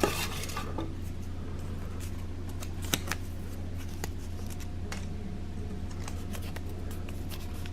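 Paper raffle tickets rustling and being handled as one is drawn from a can, with scattered small clicks and a sharper tick about three seconds in, over a steady low hum.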